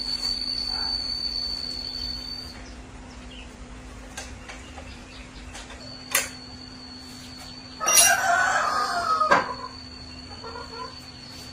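A bird's long crowing call, about a second and a half, the loudest sound here. It rises over a steady high whine and a low hum, with a sharp click a couple of seconds before it.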